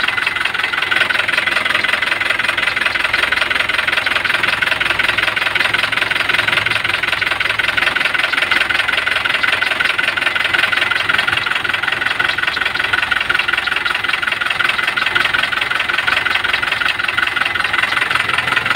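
Isuzu 4BD1 four-cylinder diesel engine idling steadily with a fast, even diesel clatter. The owner checks it for blow-by at the oil filler and judges it a good engine, now warmed up.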